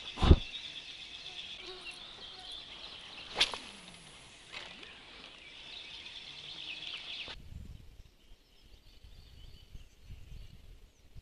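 Steady high chirping of birds and insects, broken by two sharp sounds from handling and casting a spinning rod: a loud one just after the start and another about three seconds later. A few seconds before the end the chirping gives way to faint low wind rumble.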